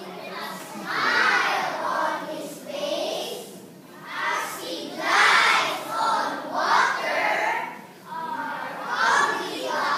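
A large group of young children reciting in unison, speaking in chanted phrases of about a second each with short breaks between.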